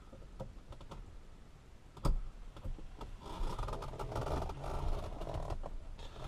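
Steering hub being worked onto the steering column's splines: a sharp knock about two seconds in, then a run of scraping and small rapid clicks as the parts are pushed and wiggled together.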